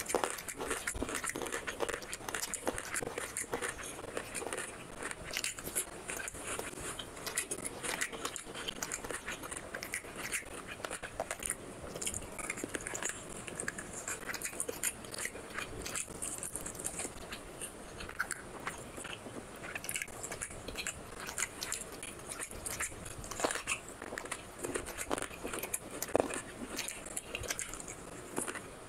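Close-miked eating sounds: a person chewing and biting mouthfuls of chicken curry and rice eaten by hand, a dense run of small wet clicks and crunches.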